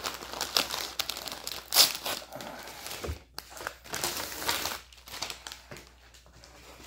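Printed paper wrapping torn open and crumpled by hand, then plastic snack packets crinkling as they are handled. The loudest rustle comes about two seconds in; it quietens in the second half.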